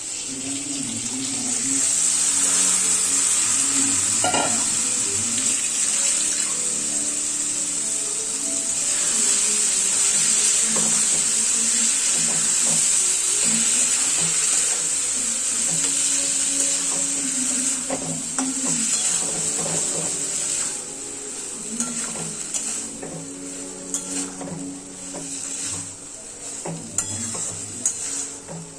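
Food sizzling in a hot pan while a spoon stirs it, the sizzle loud for about the first two-thirds, then quieter, with the spoon knocking against the pan several times near the end.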